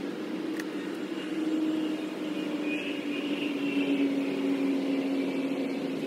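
Honeybees from an opened hive buzzing: a steady drone of several close, wavering pitches. There is a brief click about half a second in.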